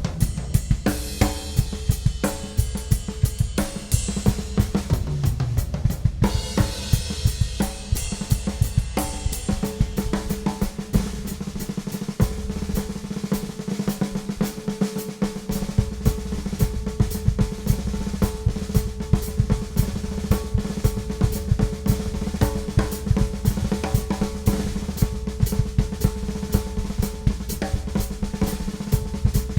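A Ludwig Classic Maple drum kit played in a fast drum solo. Cymbal crashes ring over the first few seconds and again a little later, then come dense, rapid snare and tom strokes driven by the bass drum. The bass drum drops out briefly around the middle.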